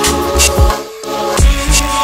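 Background music with a steady beat: deep bass-drum hits and sharp percussion over held synth notes.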